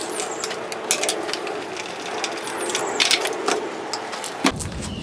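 A dirty Stihl chainsaw being cleaned on a metal-topped workbench: a steady hissing, scrubbing noise with scattered clicks and knocks.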